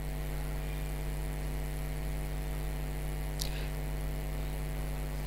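Steady electrical mains hum, a low buzz with a stack of overtones, with a short faint high swish about three and a half seconds in.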